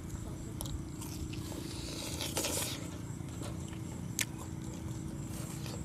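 Sounds of people eating at a table: a few sharp clicks of utensils against bowls and plates and a brief rustle about two seconds in, over a steady low hum.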